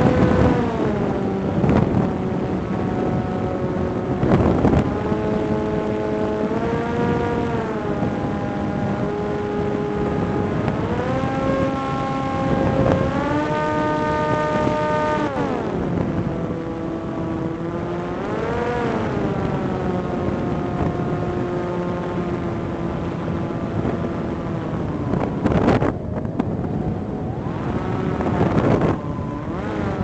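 Electric propulsion of a Volantex Ranger 757-3 RC plane, a 3715 brushless outrunner motor turning a 1060 propeller, whining, its pitch stepping up and down several times as the throttle is worked on a landing approach. Strong wind buffets the onboard microphone, with a few sharp gust thumps near the start and near the end.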